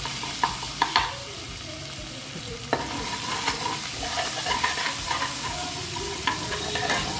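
Chopped ginger and cumin seeds sizzling in hot mustard oil in a kadhai, stirred with a spatula, with a few sharp taps and scrapes of the spatula against the pan.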